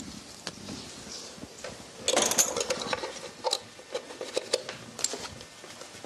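Accordion bass-button mechanism clicking and clattering as the buttons are pressed one after another, its rods and levers moving. The loudest clatter comes about two seconds in, followed by scattered single clicks.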